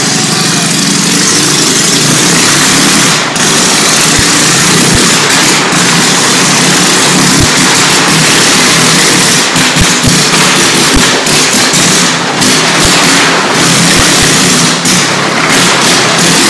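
Motorcycle engine running loudly inside the wooden wall-of-death drum, a dense steady racket with no letup.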